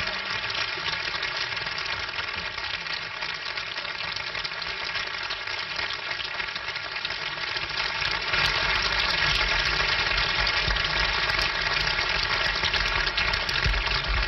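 Audience applauding, growing louder about eight seconds in, over the steady hum and hiss of an old recording.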